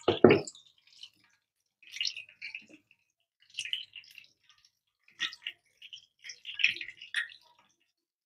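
A spatula stirring the thin asam pedas fish sauce in a wok: short bouts of liquid sloshing and scraping against the pan, coming every second or so.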